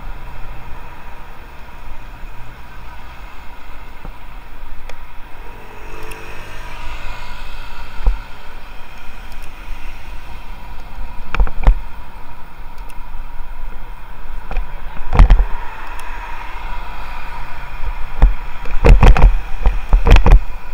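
Wind and road rumble on a bicycle-mounted camera riding through city traffic. A vehicle passes, its engine pitch sliding, about six seconds in, and several sharp knocks come through, the loudest in a cluster near the end.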